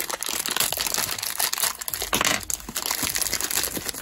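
Thin white plastic blind-bag wrapper from a Roblox mystery toy box, crinkled and pulled open by hand: a dense, continuous crinkling full of sharp crackles.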